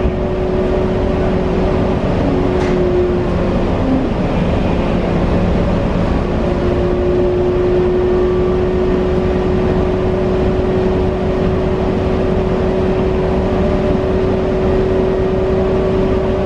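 Inside a 2022 New Flyer Xcelsior XE40 battery-electric city bus under way: steady road and tyre rumble with an electric whine held at one pitch.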